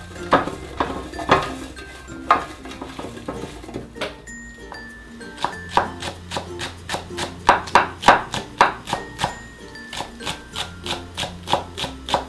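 Chef's knife chopping on a wooden cutting board in a quick, even run of strokes, about three to four a second, in the second half, over light background music. Earlier come a few knocks as eggplant pieces are tossed by hand in an enamel tray.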